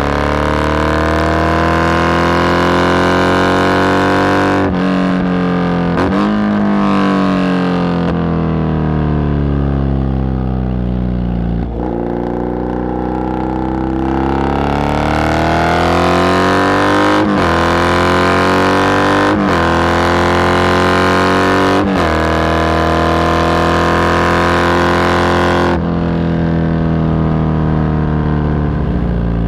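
Triumph Bonneville parallel-twin engine through open pipes with the dB-killer baffles removed, incredibly noisy while riding. The exhaust note rises and falls in pitch as the bike accelerates and slows, with short breaks at several gear changes.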